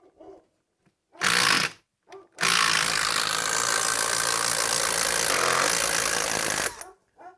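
DeWalt 12-volt brushless impact driver boring a 1 1/4-inch spade bit into wood, hammering under load. A short burst comes about a second in, then a steady run of about four seconds that stops just before the end.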